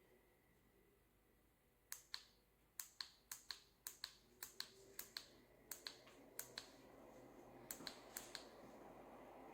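Faint sharp clicks, most in quick pairs, about a dozen over several seconds. A faint airy hiss builds steadily toward the end.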